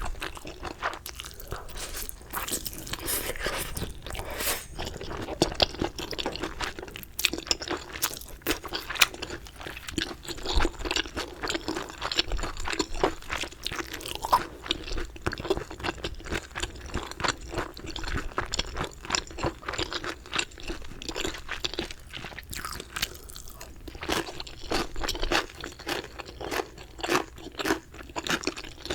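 Crispy chicken being bitten and chewed close to the microphone: a steady run of irregular crunches and chewing.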